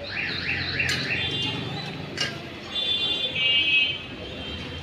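Electronic alarm siren cycling through its tones: high rising whoops about three a second at first, then a steady high warbling tone, the loudest part, past the middle. A couple of light clinks in between.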